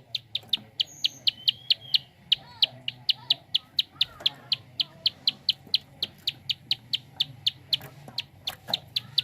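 Prinia (prenjak) giving its rapid 'klik' call: sharp, high clicks repeated evenly about five times a second. Faint chirps of other birds sound underneath.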